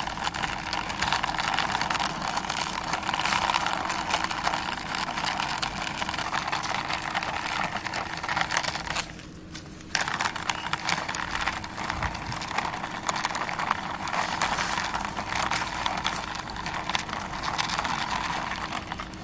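Plastic toy helicopter pushed along a surface by hand: a steady rattling scrape full of small clicks, which stops briefly about nine seconds in and then starts again.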